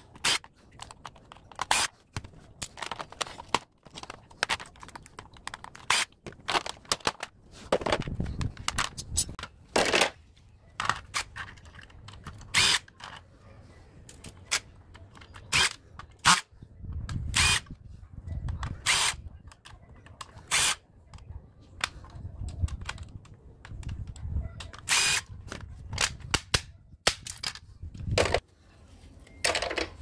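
Cordless impact driver backing screws out of a dehumidifier's plastic control panel and circuit board, running in short bursts of rapid hammering, with sharp clicks and clatter of plastic parts and screws in between.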